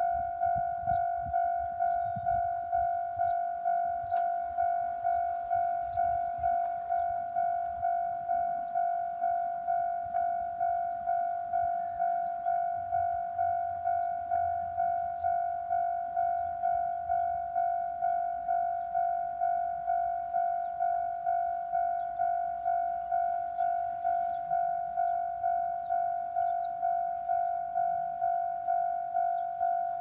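Japanese railway level-crossing alarm ringing: a single bell-like tone struck over and over in an even rhythm, just under twice a second. This is the warning that the crossing is closing for an approaching train.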